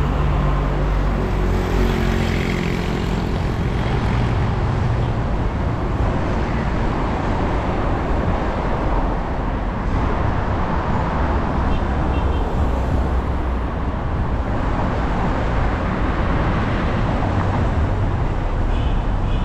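Steady city road traffic, with cars and other motor vehicles passing on a busy street; an engine hum stands out in the first few seconds.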